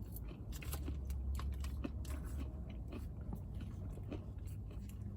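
A person chewing a mouthful of acai bowl close to the microphone, with many small crunches and clicks scattered throughout.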